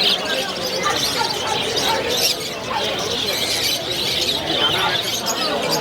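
A dense chorus of many caged birds chirping and squawking together without a break.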